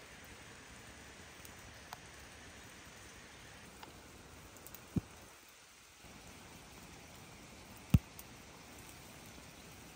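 Steady rain pattering on leaves, with a few single drops ticking close by and two sharp knocks about five and eight seconds in, the second one the loudest.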